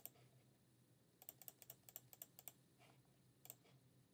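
Faint clicking of a computer keyboard and mouse, in short quick runs about a second and two seconds in and again near the end.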